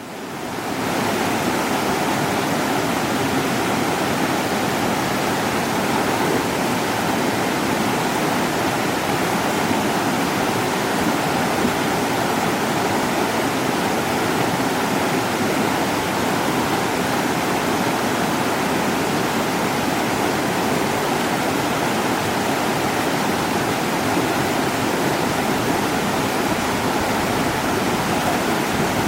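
Mountain stream running over rocks: a steady, even rush of water, fading in at the start.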